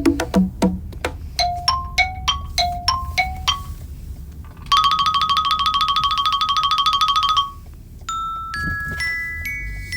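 Classic phone ringtones played back one after another: a short tinkling melody of quick notes, then a fast electronic trill ring lasting a few seconds, then a few rising chime notes that hold and overlap.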